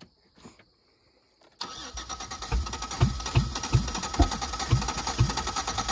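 Chevy Equinox engine being cranked by its starter, starting suddenly about a second and a half in: a fast rattling whir with a heavy thump roughly every half second. The engine turns over without catching, its oil replaced with Coca-Cola.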